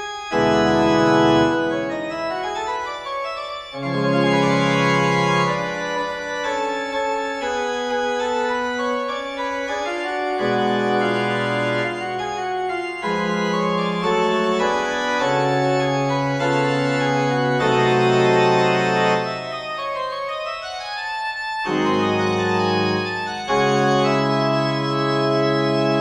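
Background music of sustained organ-like keyboard chords, each held for a couple of seconds before the next.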